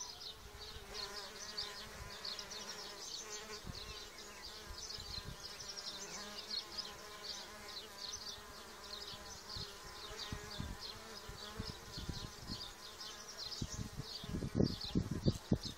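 Solitary bees buzzing in flight around a nest of reed tubes, a wavering buzz that rises and falls as they pass close. A few low thumps near the end.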